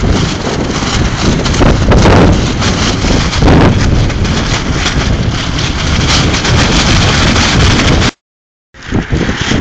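Strong gusting wind buffeting the microphone, loud and rumbling. It drops out abruptly for about half a second near the end, then comes back.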